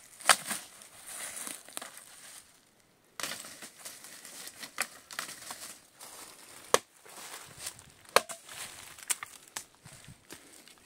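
Dry leaf litter rustling and crunching, broken by several sharp snaps and knocks of dry sticks and branches being picked up and handled.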